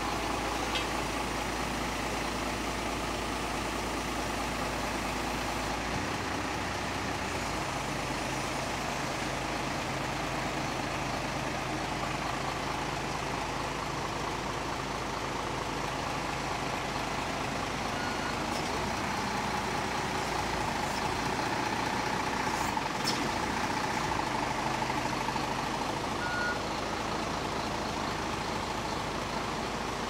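Truck engine running steadily, driving the hydraulics of a truck-mounted knuckle-boom crane that is being worked by radio remote. The engine note shifts about six seconds in, and a higher whine grows stronger partway through.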